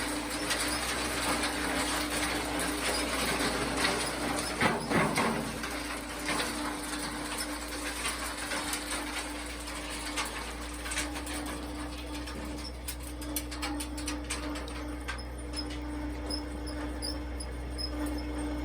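A machine running with a steady hum over a rattling, gritty noise, with scattered clicks and a louder patch about four to five seconds in.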